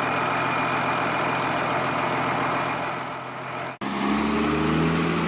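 Small battery-powered DC motor of a homemade toy car whirring steadily as it drives the wheels. About four seconds in, the sound cuts off abruptly. It comes back as a steadier hum that rises slightly in pitch.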